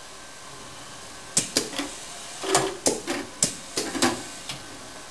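Automated pallet-conveyor production station running: a steady hum, then from about a second and a half in a quick run of sharp clacks and knocks from its mechanisms and moving workpiece carriers.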